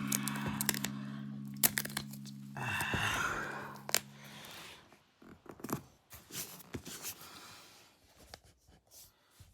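Packing sounds: a rasping tear about three seconds in, then scattered clicks and crinkles of wrapping and packaging being handled. Background music runs under the first part and stops about halfway through.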